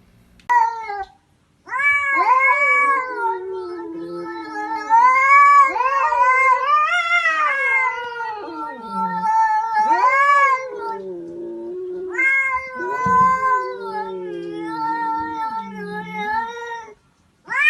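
A cat yowling: a short cry, then long, drawn-out wavering cries that rise and fall in pitch, with only brief breaks, about a second in and again near the end.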